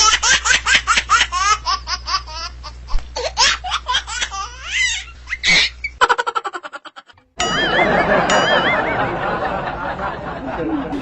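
Hearty, rapid laughter for about six seconds, breaking off in a quick stuttering fade. After a short gap, a dense noisy sound with warbling high tones begins.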